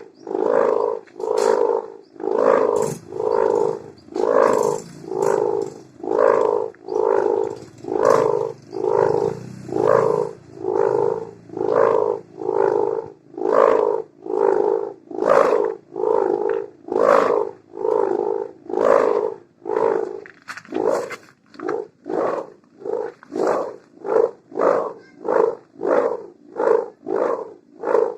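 Sendaren kite hummer made of mika plastic film joined with gift ribbon, vibrating with a snoring-style drone (suara ngorok). The drone throbs in even surges a little more than once a second, and the surges come faster for the last several seconds.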